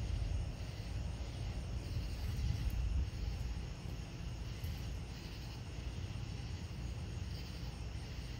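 Outdoor night ambience: a steady low rumble, with insects chirping faintly at a high pitch every second or two.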